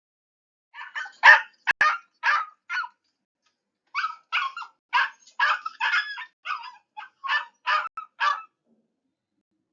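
An animal's short, repeated calls in two runs: about six from a second in, then a quicker series of about a dozen from about four seconds in, stopping near the end.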